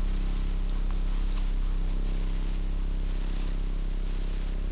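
A baby bouncer seat's vibration motor runs with a steady low hum.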